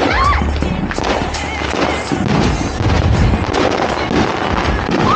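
Firecrackers and fireworks going off in a dense, rapid string of sharp cracks.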